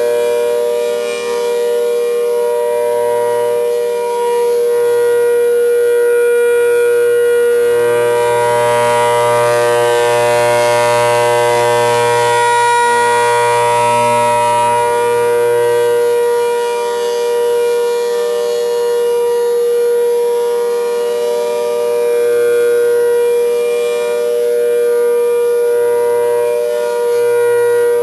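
ACA Hurricane 130 outdoor warning siren sounding at full pitch after its wind-up, holding a steady chord of several tones. The sound swells and fades slightly in loudness.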